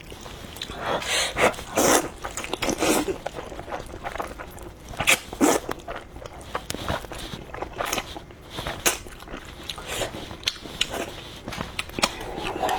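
Close-miked eating of noodles with fermented black beans: chewing and slurping with many wet mouth clicks and smacks, and louder bursts between about one and three seconds in and again around five seconds.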